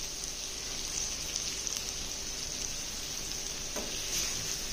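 Chicken masala sizzling steadily with faint crackles on a tawa griddle, the flame just turned off.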